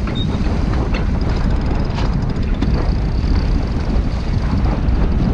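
Steady low wind noise buffeting the microphone aboard a sailboat under way in a fresh breeze, with a few sharp knocks near the start and about two seconds in.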